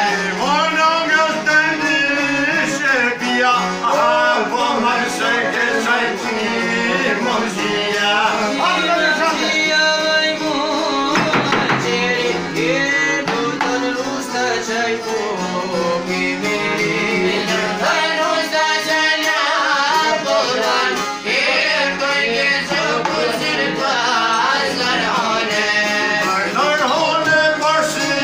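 Albanian folk song: men singing together with plucked long-necked lutes and an accordion, played live.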